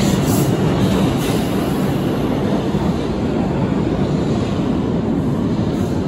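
New York City subway train running out along the far track of an underground station: a steady rumble that slowly fades as it pulls away.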